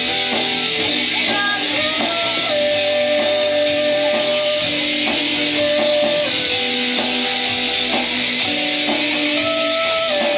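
Live band playing a rock song: strummed twelve-string acoustic guitar with electric guitar, bass and drums, under a melody of long held notes that step and bend in pitch.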